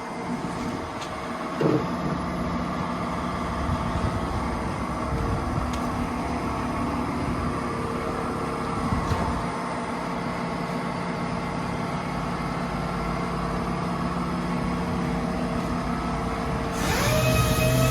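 Steady machine hum with several constant tones, in a car body and paint workshop. Near the end a motor spins up with a rising whine and holds at speed.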